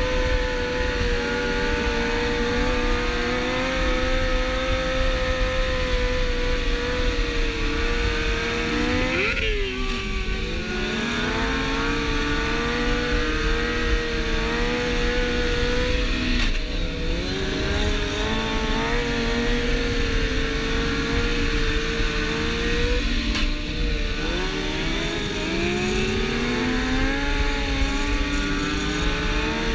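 Sport motorcycle engine running at steady high revs with wind rushing past. The pitch sweeps up and drops sharply about nine seconds in, dips again around sixteen seconds, and falls and climbs back near twenty-four seconds, like throttle changes and gear shifts.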